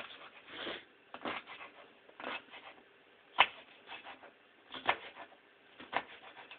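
Kitchen knife chopping onion on a wooden cutting board: about six separate, irregular knocks roughly once a second, the loudest a little past halfway.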